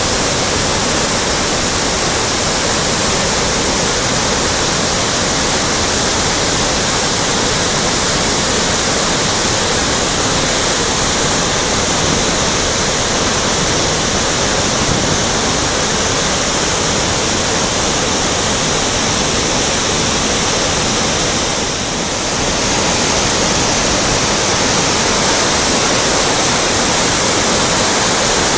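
A flooded river rushing over and between boulders in rapids: a loud, steady noise of whitewater, briefly a little quieter about three-quarters of the way through. The muddy, swollen water is the sign of the river in spate.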